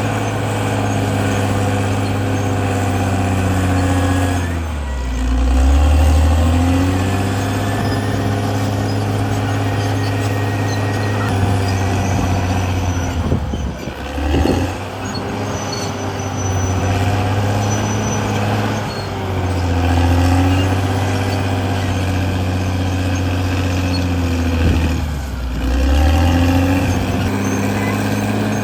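Caterpillar D6R XL bulldozer's diesel engine running hard, its note dipping in pitch and coming back up four times.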